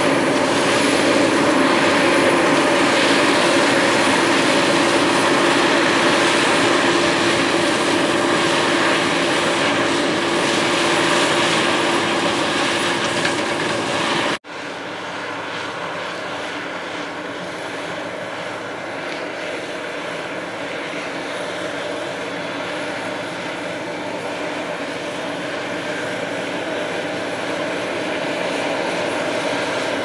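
CAT Lexion combine harvesting corn: the engine and threshing machinery running steadily with a constant hum. The sound breaks off abruptly about halfway through, then returns quieter and grows slowly louder toward the end.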